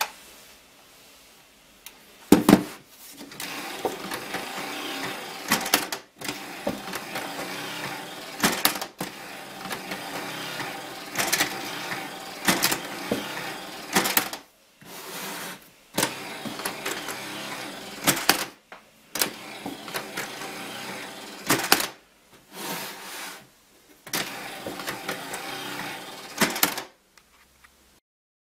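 A LEGO-built useless machine at work, over and over: a small motor whirs and gears rattle as the arm pushes out of the lid to flip the toggle switch back off, with sharp clicks from the switch and lid.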